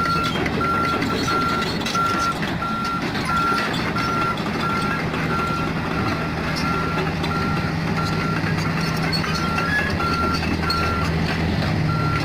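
Komatsu PC45 mini excavator's diesel engine running steadily under work, with a travel or reversing alarm beeping in a steady series that pauses briefly about ten seconds in.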